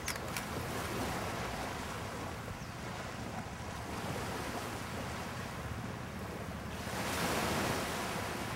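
Small waves washing onto a sandy beach in a calm bay, a steady surf sound that swells about seven seconds in as a wave runs up the sand. A brief click right at the start.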